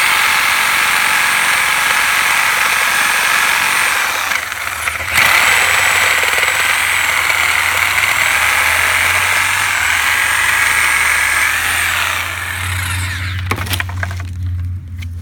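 Electric power tool running at full speed as it cuts through the wooden rocking chair, with a steady high whine. It eases off for about a second around four seconds in, then runs again and winds down about twelve seconds in, followed by a few light knocks.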